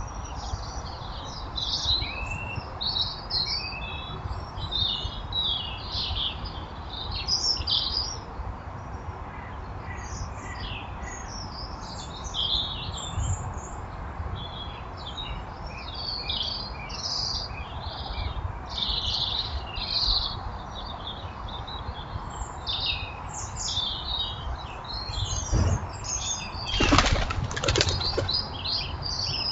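Small garden birds chirping busily and without a break, with a burst of wing flapping near the end as a bird takes off or lands close by.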